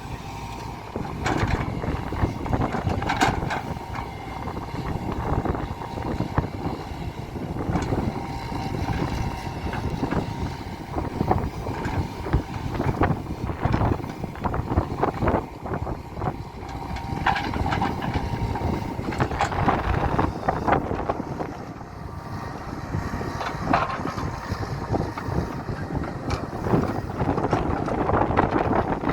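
JCB JS175W wheeled excavator working while levelling ground: engine and hydraulics running under varying load, with frequent knocks and clanks. A steady high whine runs through roughly the first half.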